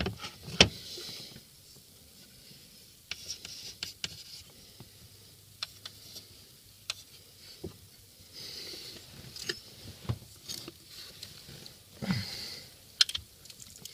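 Hands positioning an ECU and relays on a mounting plate. A sharp knock comes about half a second in, then scattered light clicks and taps, with brief scraping and rubbing as the parts are shifted into place.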